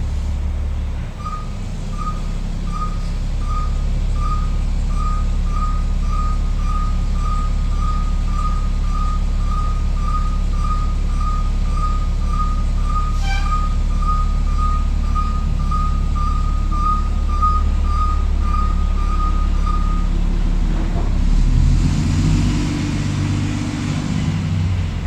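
Garbage truck backing up, its reversing beeper sounding about one and a half times a second over the engine's steady low running. The beeping stops about 20 s in, and near the end the engine note rises in pitch. A single sharp knock comes about halfway through.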